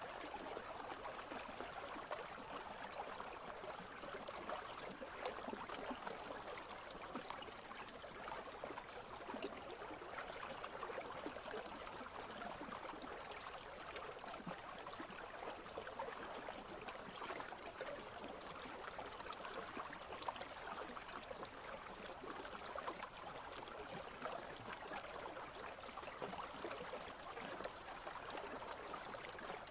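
Steady flowing of a shallow country stream, water running over stones.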